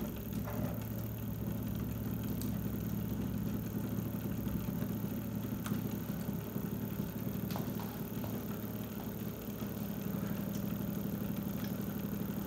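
A belt-driven rig running steadily: a DC motor, powered from a supercapacitor bank, turns the large pulley of a three-phase motor used as an alternator, giving an even low hum. A few faint clicks are heard along the way.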